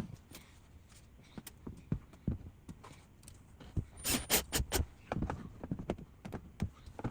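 Scattered light knocks and clicks, irregular, with a quick cluster of sharper ones about four seconds in.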